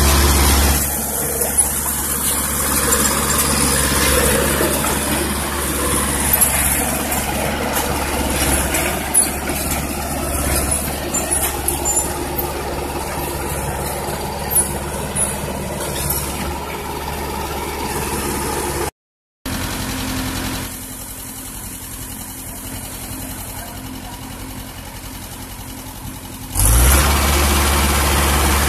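Tracked excavator's diesel engine running steadily, with scattered clicks and knocks. After a brief cut about two-thirds of the way through it is quieter for several seconds, then it comes back loud near the end.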